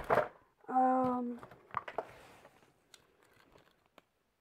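Packaging crinkling and rustling as small items are pulled out of a box, loudest at the start, with a short hummed vocal sound about a second in. A few sharp crackles follow, then light clicks and taps trail off.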